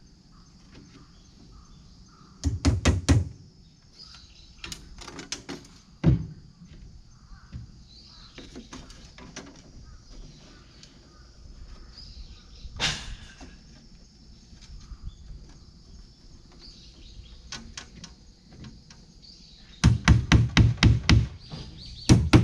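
Hammer driving nails into wooden concrete formwork. There is a quick run of blows about two and a half seconds in, scattered single knocks after that, and a run of about seven fast blows near the end.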